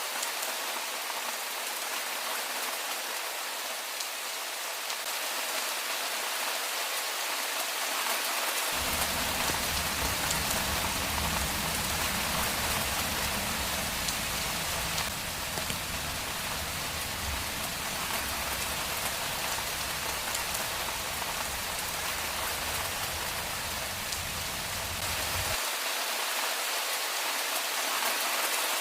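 Steady, heavy rain falling on a street, an even hiss of drops. From about nine seconds in to near the end, a low rumble runs beneath it and then cuts off abruptly.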